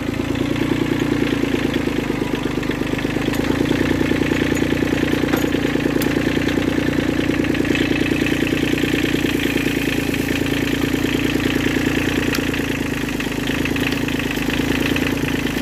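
Old Kubota diesel tractor engine running steadily as the tractor drives along, with a fast, even pulse of firing strokes. A few faint clicks and rattles sound over it.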